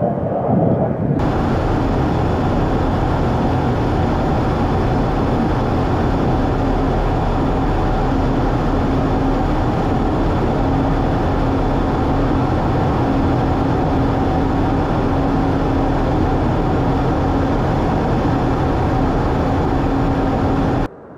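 Fighter jet cockpit noise in flight: a loud, steady roar of engine and rushing air with a constant low hum and a fainter higher tone running through it. It is preceded by about a second of distant jet noise heard from the ground.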